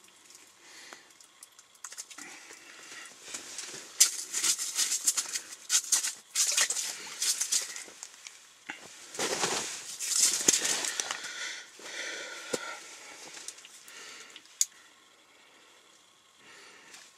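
Close rustling and crinkling of fabric and clothing, with scattered sharp clicks. It is loudest from about four to eleven seconds in.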